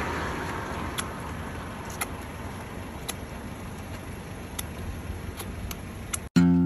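Outdoor background noise: a steady rushing hiss that fades slightly over the first seconds, under a thin, steady high-pitched whine, with a few faint light clicks. It cuts off suddenly near the end.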